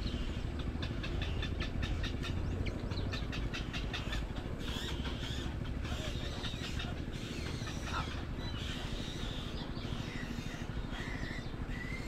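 Egret chicks in the nest giving a rapid clicking chatter, about eight clicks a second, for the first few seconds, over a steady low rumble. Short higher bird calls come in near the end.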